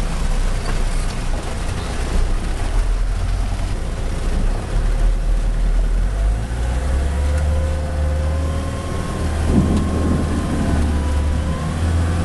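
Mahindra utility vehicle driving on a wet, muddy track, its engine running steadily under a constant rush of tyre and rain noise, heard from inside the cab. About halfway through the engine note steps up in pitch.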